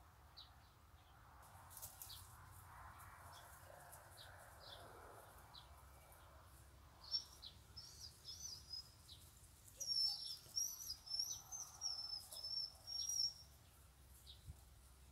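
Muscovy ducklings peeping: scattered short high peeps, then a quicker run of louder, wavering peeps from about seven seconds in until about thirteen seconds.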